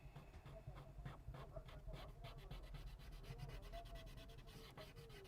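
Faint, quick repeated scraping and rubbing strokes, several a second, from cleaning old adhesive off a phone's frame. A faint wavering whine runs underneath.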